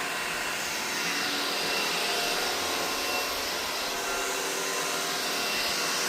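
Vacuum cleaner running steadily, a rush of suction with a faint high motor whine, picking up spilled Weetbix.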